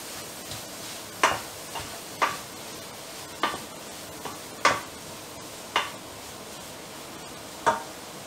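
Diced chicken and leek sizzling in a frying pan while a wooden spatula stirs them, with about six sharp knocks of the spatula against the pan at irregular intervals.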